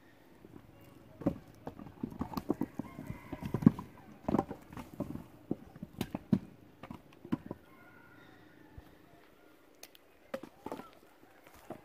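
Split firewood pieces knocking and clattering against each other as they are picked up and stacked by hand: a run of uneven wooden clacks, thickest in the first half, with a few more near the end.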